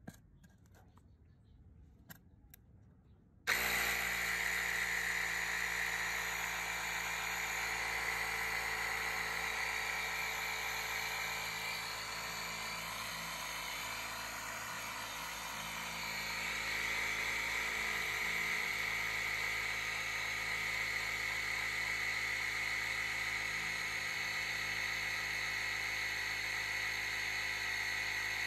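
Small homemade electric air compressor switched on about three and a half seconds in and running steadily, a whirring motor with a high whine, as it pumps air through its hose into a tyre. Its level dips slightly midway and then picks up again.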